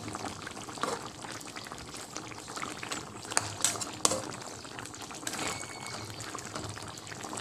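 Chicken pochero in tomato sauce simmering in a pan, a steady bubbling with a few sharp pops, the loudest about three to four seconds in.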